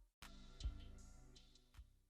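Faint music fading out to near silence in the gap between two songs.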